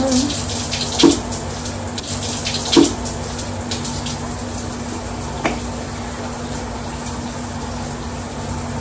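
Shower water running steadily. Three short sharp clicks come through it, about one, three and five and a half seconds in, the middle one the loudest.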